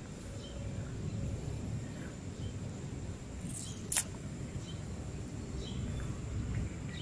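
Outdoor background noise: a steady low rumble with a few faint high chirps, and one sharp click about four seconds in.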